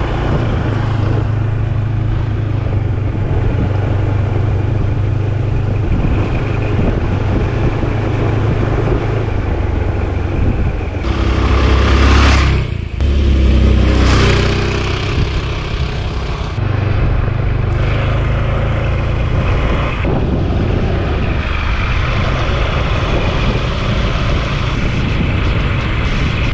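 Rented motor scooter riding along a road: a steady engine hum with wind and road noise, swelling louder for a few seconds about halfway through.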